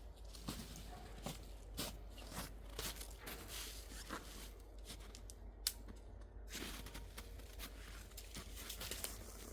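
Irregular rustling, crinkling and snapping sounds from something being handled by hand, with many short clicks and one sharp snap about five and a half seconds in.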